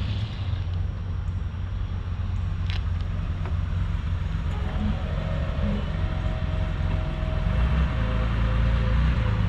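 Air-cooled flat-six engine of a classic Porsche 911 running at low speed as the car rolls out of the lot, growing louder near the end.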